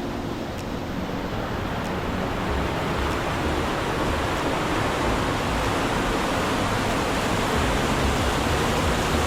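Waterfall: a steady rush of falling water that grows louder over the first few seconds, then holds.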